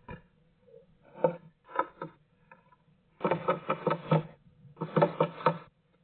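Great tit pecking and hammering at the wood inside a nest box: two short bouts of taps, then two longer runs of rapid tapping at about eight taps a second.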